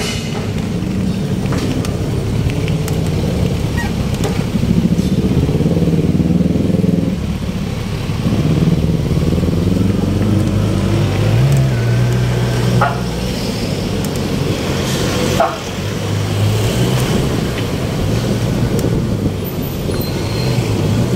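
Road traffic: motor vehicle and motorcycle engines running and passing, a continuous drone that rises and falls in pitch.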